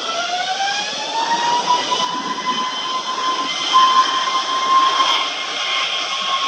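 Airbus A321neo's CFM LEAP-1A turbofan engines spooling up to takeoff power: a rising whine that levels off about a second in and holds as a steady high whine over a jet rush.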